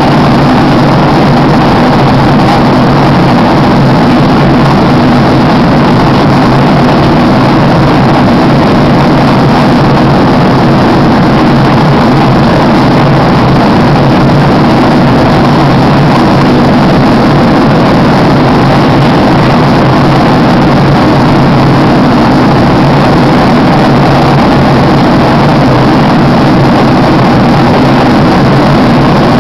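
Steady, loud roar of engines and rushing air inside a passenger airliner's cabin in flight.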